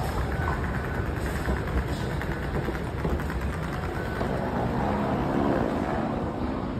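Steady low rumble and hiss of an underground subway station hall, with a few faint clicks.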